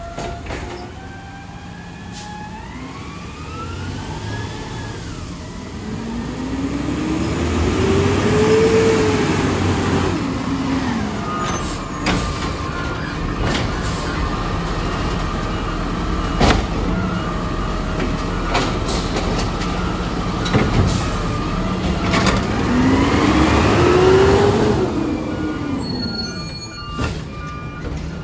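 Automated side-loader garbage truck with its diesel engine running; the engine pitch rises and falls twice as it revs and settles, with a few sharp knocks in between.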